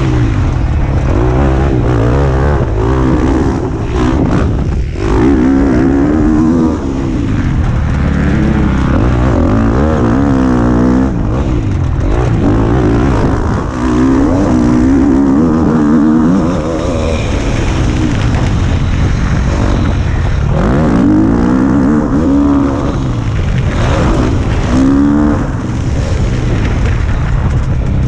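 KTM motocross bike engine revving hard and easing off again and again as the rider accelerates, shifts and brakes around the track, its pitch climbing and dropping every few seconds. A heavy low rumble of wind on the helmet-mounted microphone runs underneath.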